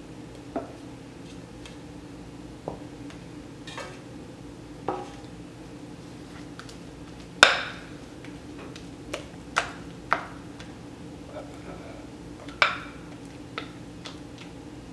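Wooden spoon knocking and scraping against a glass mixing bowl and metal cake pans as thick carrot cake batter is scooped out: scattered single taps and knocks, the loudest about halfway through, over a steady low hum.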